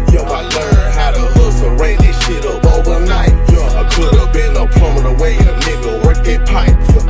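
Hip hop beat playing without vocals: heavy bass under drum hits roughly every two-thirds of a second, rapid hi-hats and a melody.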